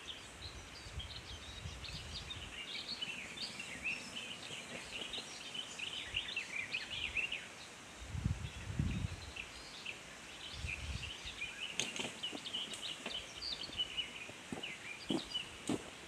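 Small birds chirping and singing, a steady scatter of short high notes. A few low muffled thumps come in around the middle.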